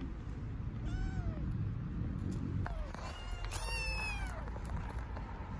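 Hungry stray kittens meowing: one meow about a second in, then several high-pitched meows overlapping between about three and four and a half seconds.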